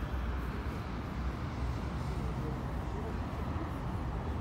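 Street ambience: a steady low rumble of city traffic, with faint distant voices of passers-by.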